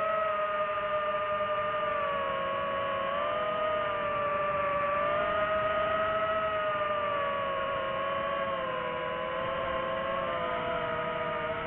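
DJI FPV drone's motors and propellers whining: several steady tones that drift slowly up and down in pitch as the motor speeds change.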